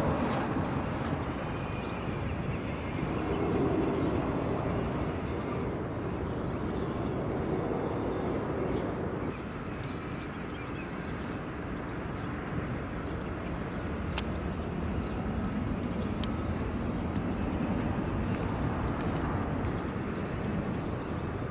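Steady outdoor background rumble that swells and eases gently, with no speech.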